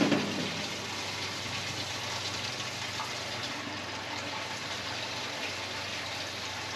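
Gasoline pouring from a plastic jug into a converted beer-keg fuel tank, a steady gush of liquid into the filler, with a brief louder surge right at the start.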